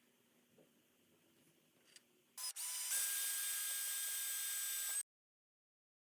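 A small power tool starts abruptly about two and a half seconds in and runs at steady speed for about two and a half seconds, a high steady whine over hiss, then cuts off suddenly. Before it, a few faint clicks of handling.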